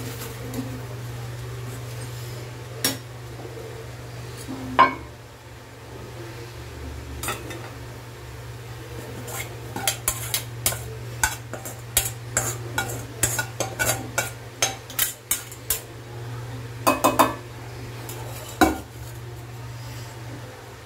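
Steel spatula scraping and clinking against a steel kadai as cooked hakka noodles are scooped out to serve. A few single knocks come early, then a quick run of taps from about ten to sixteen seconds in and a couple more clanks near the end, over a steady low hum.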